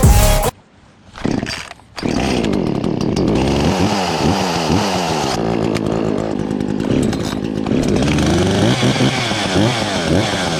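Echo two-stroke chainsaw running after maintenance, starting about two seconds in. The throttle is opened and released over and over, so the engine pitch rises and falls repeatedly.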